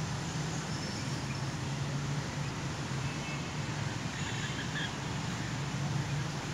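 Steady outdoor background: a constant low hum under an even hiss, with a few faint, short high chirps.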